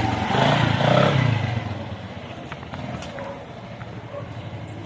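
Motor scooter engine running as it goes by, loudest about a second in and then fading away.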